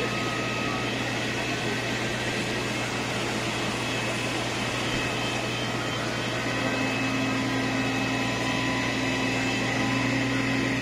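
London Fire Brigade fire engines running their pumps to feed the hoses: a steady mechanical drone with a constant high whine, a second low hum joining about six seconds in, over the hiss of water jets.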